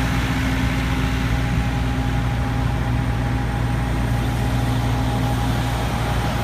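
Heavy diesel engine of a truck crane running steadily at constant speed: a low hum with a faint steady whine above it.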